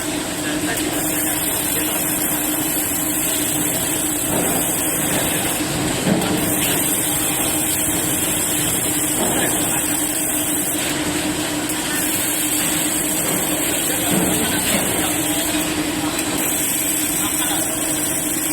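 Steady industrial noise from an arc welding robot at work: an even hiss over a constant low hum, with no breaks.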